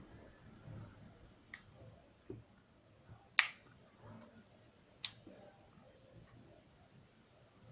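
Four sharp clicks and taps from small tools and phone parts being handled during a Huawei P8 Lite battery replacement, spaced a second or so apart, the loudest about three and a half seconds in.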